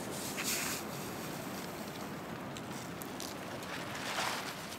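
Storm wind blowing steadily, with a louder gust about half a second in and another near the end.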